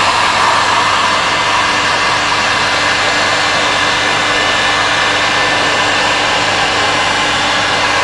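Heat gun blowing hot air over protective wrap film on a bike frame to shrink it into place: a steady rush of air over a constant motor hum.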